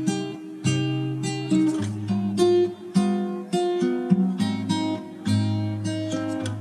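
Background music: an acoustic guitar strummed in chords, with a fresh strum about every half second to second.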